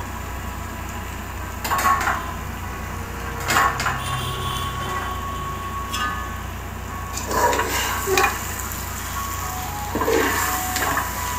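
Metal spoon clinking and scraping against a metal cooking pot several times while raw chicken pieces are stirred into masala, over a steady low hum.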